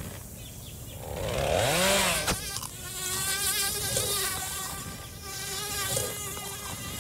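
A fly buzzing in flight. Its pitch swoops up and back down as it sweeps past about a second in, then it keeps up a steady, slightly wavering buzz.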